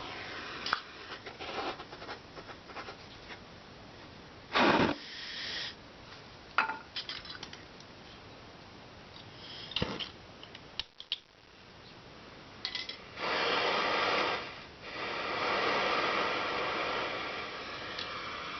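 Scattered clinks, taps and short scrapes of metal tools on a steel body panel during body-solder work, with a sharper rasp about four and a half seconds in. In the last five seconds or so a steady, rushing hiss takes over.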